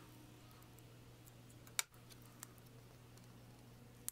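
Quiet shop room tone with a faint steady hum, broken by a sharp click a little under two seconds in, a lighter tick soon after and another click near the end: small handling noises of tools and a marker on a bench.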